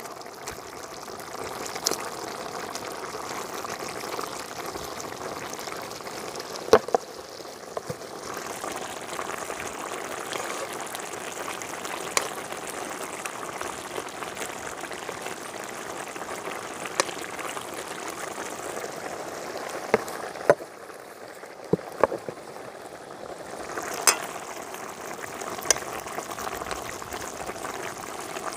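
Fish stew bubbling steadily in its sauce in a pot, with about ten sharp clicks or knocks scattered through it.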